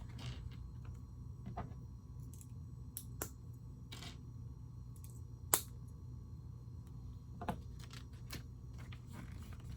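Plastic Lego pieces clicking and tapping as they are handled and pressed together, a handful of separate sharp clicks with the loudest about five and a half seconds in, over a faint steady low hum.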